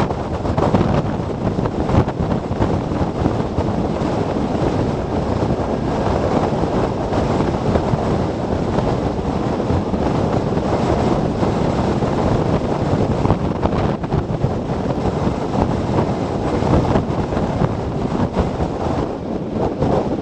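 Storm wind blowing hard across the microphone of a camera on an electric motorcycle riding at speed, a loud, steady rushing noise. No motor note stands out above it.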